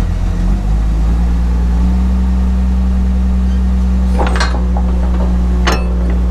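Excavator's diesel engine running steadily, rising to a higher steady speed in the first two seconds after starting. Two sharp metallic clanks stand out, about four and six seconds in.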